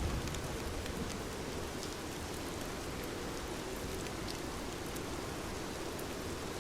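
Steady rain falling, an even hiss with scattered drip ticks. A low thunder rumble dies away in the first moment.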